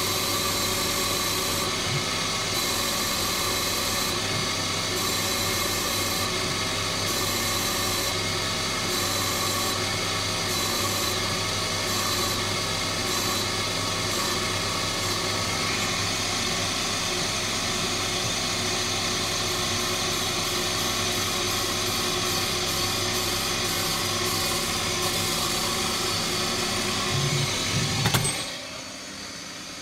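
Hercus PC200 CNC lathe turning an aluminium knob: the spindle runs steadily while the tool cuts the outside of the ball, a continuous machining noise with a steady hum. Near the end there is a short louder rattle, and then the sound drops to the quieter running of the spindle.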